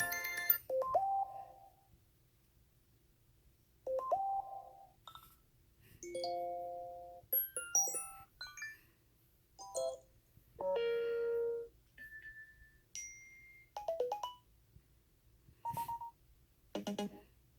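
A run of about ten short iPhone/iPad alert tones played one after another, each a brief phrase of chime or beep notes, separated by short silent gaps.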